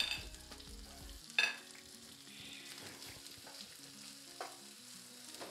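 Chicken, sausage and bacon sizzling in an oiled frying pan, with a sharp knock of a utensil against the pan at the start and another about a second and a half in.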